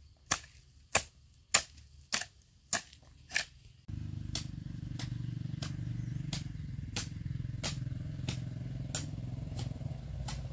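A long-handled hoe striking into soil, six sharp chops about every 0.6 s. About four seconds in, a motorbike engine takes over as a steady low hum, with fainter regular ticks going on underneath.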